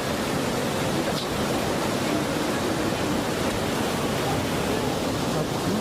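Tsunami floodwater rushing through a town: a steady, unbroken rushing noise.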